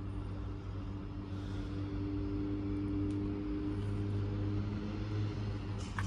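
Motor vehicle engine running on the street, a steady low drone that swells for a couple of seconds in the middle.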